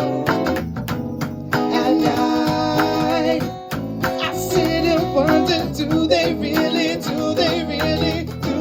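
A live rock band playing an instrumental passage, with guitar to the fore over bass and drums.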